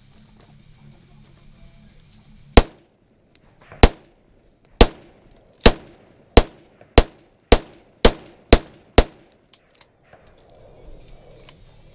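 A rifle fired ten times, one shot at a time. The first shots come more than a second apart, then they quicken to about two a second.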